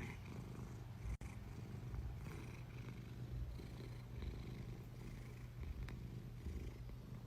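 A cat purring steadily, a faint low rumble that swells and eases with its breathing.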